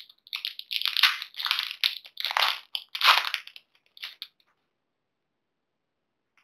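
Foil wrapper of a Pokémon TCG booster pack crinkling and tearing as it is opened: a run of crackly, crunchy bursts that stops about four and a half seconds in.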